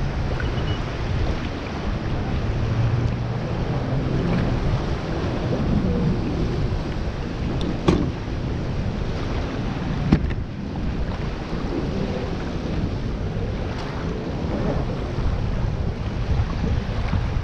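Wind buffeting the microphone over shallow water lapping at the shore, with a faint engine hum from jetskis passing out on the water. Two sharp knocks, about eight and ten seconds in.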